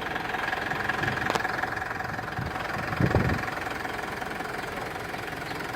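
Mitsubishi Strada's turbocharged common-rail diesel engine idling steadily with a diesel knock. A click about a second in and a dull thump about three seconds in.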